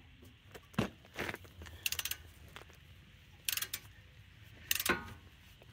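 Half-inch-drive flex-head ratchet with a 21 mm socket clicking in several short runs on a brake caliper bracket bolt, with a single knock about a second in.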